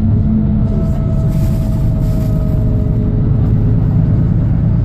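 Volvo B9TL double-decker bus's diesel engine running steadily under way, heard from on board, with a faint whine that fades out about three seconds in. The uploader calls the bus clapped out, with a ticking sound.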